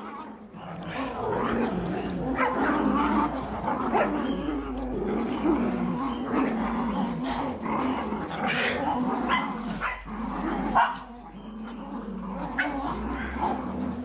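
Several Cavalier King Charles Spaniel puppies playing rough, growling, yipping and giving small barks as they tug at a toy together, with one louder cry about eleven seconds in.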